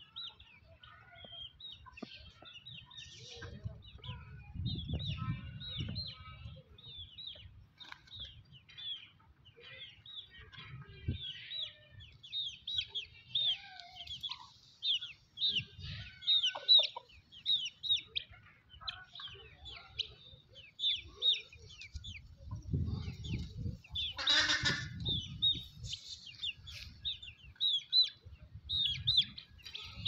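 Poultry and birds calling: a steady stream of quick, high chirps, with a louder, harsher call about twenty-four seconds in. Low rumbling noise comes and goes underneath.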